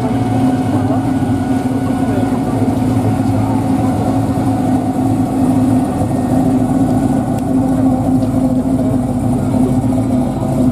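A motor vehicle's engine running steadily at low speed, a continuous low hum with no sharp changes.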